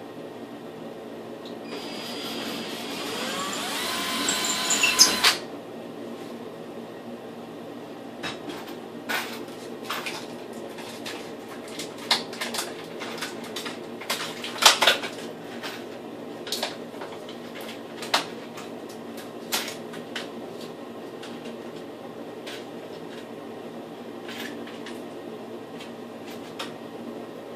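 A small power tool runs for about three seconds, building in level and then cutting off sharply. After it come scattered clicks and clinks of tools and parts being handled, over a steady background hum.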